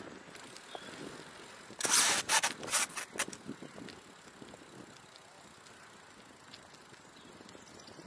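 A burst of loud clattering knocks about two seconds in, then a few single knocks over the next second, from a BMX bike and its small camera being handled close to the microphone. Only a faint steady hiss follows.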